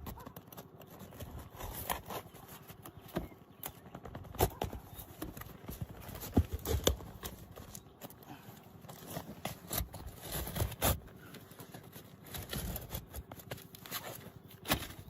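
Irregular knocks and scrapes of hand work on a shingle roof: shingles being lifted and a vent hole being cut through them.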